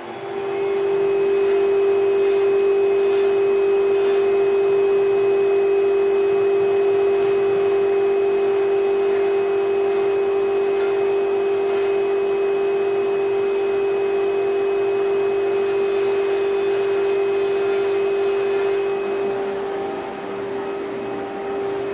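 CNC drilling machine's spindle running with a steady whine while it peck-drills holes in a conveyor belt. The whine eases off a little about three seconds before the end.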